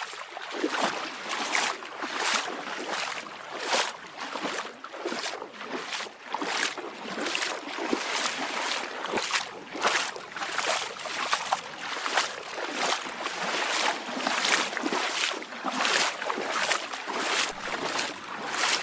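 Footsteps walking through standing water, each step a splash at a steady walking pace.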